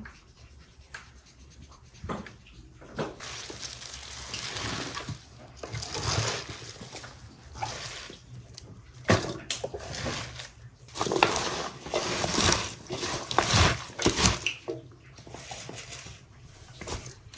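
Irregular handling noises: rustling and scraping, with several sharp knocks that come thicker and louder in the second half.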